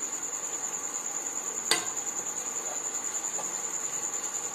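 A puri sizzling as it deep-fries in hot oil in a kadai while a ladle presses it to puff it up, with one sharp click of the ladle against the pan about two seconds in. A steady high-pitched whine runs behind it.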